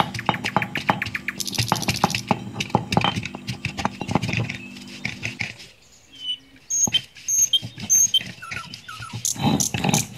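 Stone roller of an ammi grinding stone worked back and forth over wet spice paste: quick, rough scraping and knocking of stone on stone. It stops briefly around the middle and starts again near the end.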